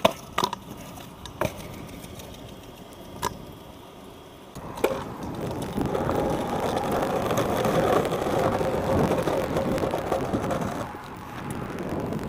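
Stunt scooter clacking on pavement: a few sharp knocks in the first few seconds. Then, from about four and a half seconds in, the scooter wheels roll over rough asphalt with a steady rumble and a faint whine, easing off near the end.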